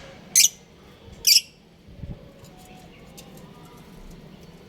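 Budgerigars calling: two short, loud, high-pitched chirps about a second apart, then softer scattered chirps and ticks.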